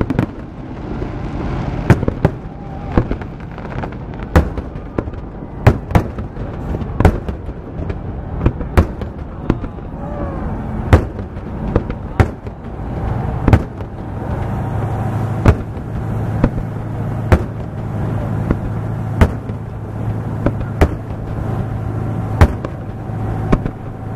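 Fireworks display: aerial shells bursting overhead in a steady series of sharp bangs, about one a second, over a continuous rumble.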